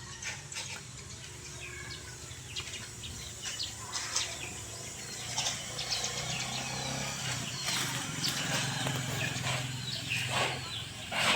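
Birds chirping over a steady low hum that grows louder in the middle, with a few short clicks.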